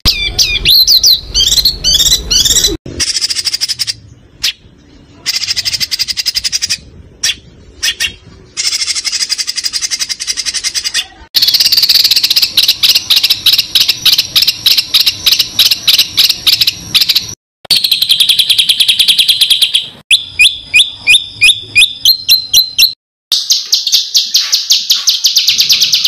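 Songbirds singing in a spliced sequence of recordings: high trills and very fast runs of repeated chattering notes, the hard 'tembakan' style used in masteran training tracks, switching abruptly from one clip to the next about ten times.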